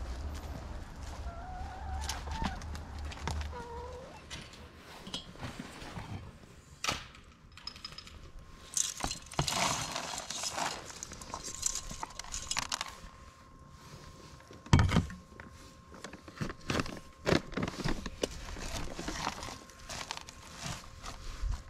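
Backyard hens giving a few clucking calls, then food being tipped out of a stainless steel colander and spread by hand: scattered taps, clatters and rustles, with one loud knock about fifteen seconds in.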